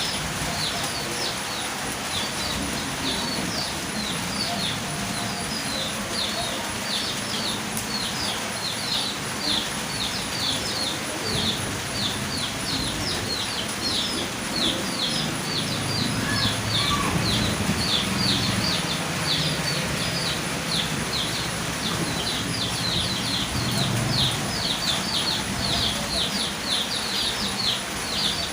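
Steady rain hiss with a bird chirping rapidly and continuously over it, short high chirps several a second. A faint low rumble comes in about halfway through.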